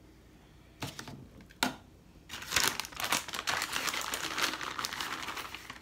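Two sharp knocks, then a plastic bag of shredded cheese crinkling and crackling steadily for about three seconds as it is handled.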